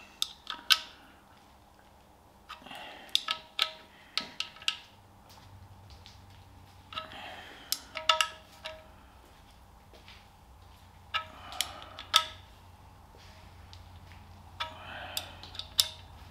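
A steel spanner clinks on the sump bolts as they are nipped up a fraction of a turn each on an aluminium tractor-engine sump. The clicks come in short clusters about every four seconds, sharp metallic clicks with a brief ring.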